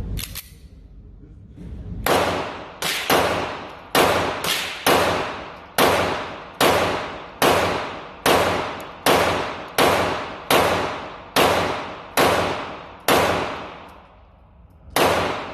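Girsan Regard MC 9mm pistol (a Beretta 92 clone) being fired shot after shot through a 15-round magazine. There are about fifteen shots, starting about two seconds in and coming roughly one a second, each trailing off in a reverberant echo.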